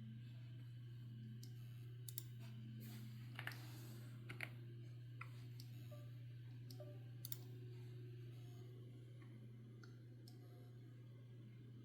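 A failing 12 TB hard drive clicking: faint, sharp clicks at irregular intervals, about one every second or two, over a steady low hum. The clicking is the sign of a drive that no longer works.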